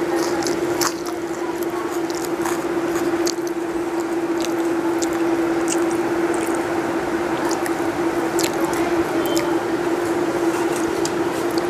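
Close-miked eating by hand: chewing and wet mouth smacks with many short sharp clicks, and rice and curry squished between the fingers. A steady low hum runs underneath.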